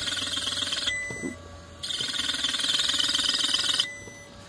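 Cut-open scroll compressor's single-phase motor driven from a variable-frequency drive at 10 hertz, buzzing electrically in two bursts, one ending about a second in and the next running from about two seconds in to near the end. The motor is seized or tight and has something wrong in the motor section.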